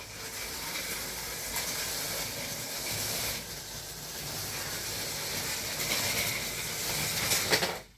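Model train running on the layout's track, a steady hissing noise that cuts off suddenly near the end.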